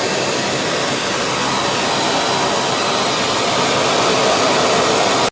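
Wet-and-dry vacuum cleaner running steadily at full power, a loud even rushing of motor and airflow.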